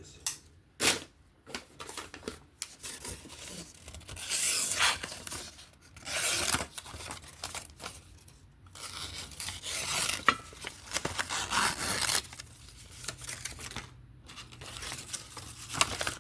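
Civivi Conspirator folding knife blade slicing paper in several rasping, tearing strokes, each about a second or more long. The freehand-sharpened edge is slick in places and tears rather than cutting cleanly.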